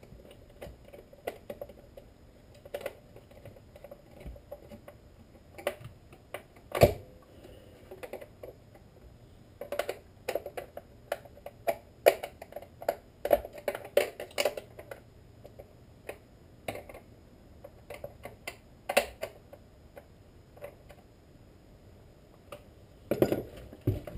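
Scattered light clicks and small knocks of chainsaw parts being handled on a workbench, metal and plastic tapping together, as the clutch and sprocket side of a Husqvarna 455 Rancher chainsaw is worked on by hand. There is one sharper knock about seven seconds in, a busy run of clatter through the middle, and another cluster near the end.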